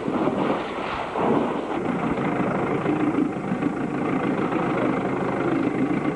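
Small boat's motor running steadily with a low rough rumble.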